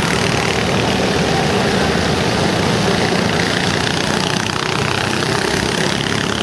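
Several go-karts' small engines running together as the karts lap the track, a steady dense drone.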